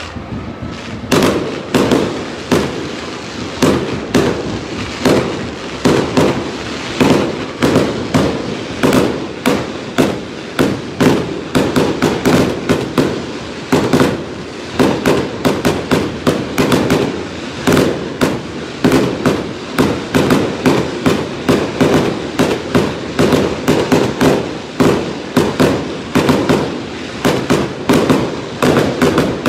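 Aerial fireworks shells bursting in a rapid, continuous barrage of bangs, about two or three a second, beginning about a second in.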